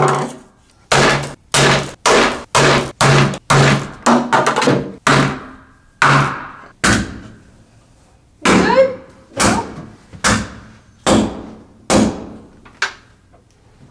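Repeated hammer blows on the base of a color-changing LED light bulb, smashing it open: about seventeen sharp knocks, around two a second at first, then slower and more spaced after a pause of over a second halfway through.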